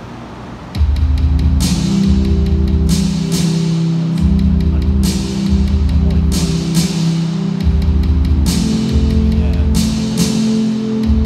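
Loud live band music kicks in suddenly about a second in: heavy sustained low chords in repeating blocks, with drum hits and cymbal crashes.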